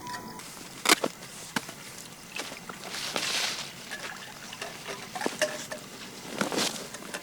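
A few sharp knocks and clicks, the loudest about a second in, with short stretches of rustling in between: objects being handled and set down by hand.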